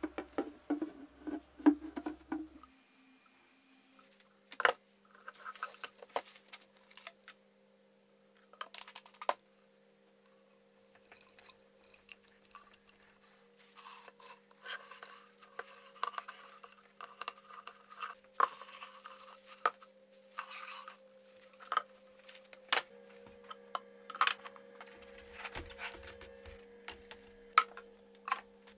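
Scattered clicks, taps and rubbing from handling a polished horn and tools on a workbench, over a faint steady hum.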